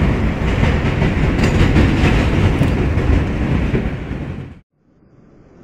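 Train running on the rails: a loud rumble with the clickety-clack of wheels over rail joints, cutting off abruptly near the end and giving way to a much quieter steady noise.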